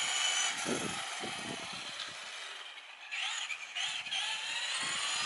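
Traxxas RC trucks' electric motors and gearing whining as they drive on asphalt at some distance, with a couple of brief rising-and-falling whines about three seconds in as the throttle is worked. They are running on a nearly flat, uncharged battery.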